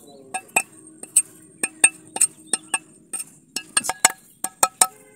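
Curved machete blade striking a husked mature coconut: a rapid series of sharp chopping clicks, about three a second and quicker near the end, as the last husk fibre is trimmed off the shell.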